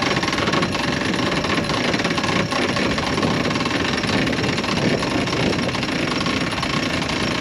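Electric cockpit winch running steadily as it hoists the mainsail halyard, a loud continuous mechanical rattle.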